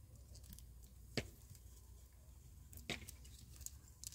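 Two sharp clicks about a second and a half apart, with a few fainter ticks, over a faint low rumble: a knife tapping a plate while food is sliced on it.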